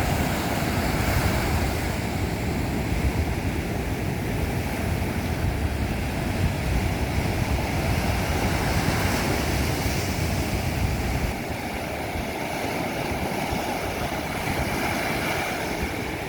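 Sea surf washing onto a beach: a steady wash of noise, with a low rumble that drops away about eleven seconds in.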